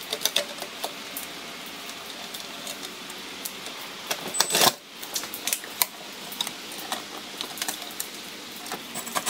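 Clicks and light metallic rattles of a license plate and plastic camera frame being handled and fitted onto a car's trunk lid, with a short burst from a cordless drill/driver about halfway through as it drives a mounting screw.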